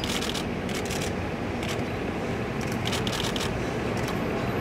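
Steady city street traffic noise, with a few short hissy scrapes or rustles.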